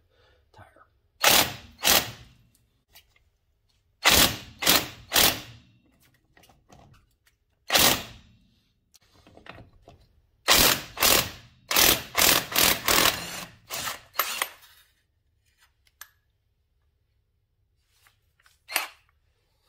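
WORKSITE cordless impact wrench hammering on a truck wheel's lug nut in short trigger bursts, a few spaced-out pulses and then a run of rapid bursts about ten seconds in, breaking the nut loose. A single short sharp knock comes near the end.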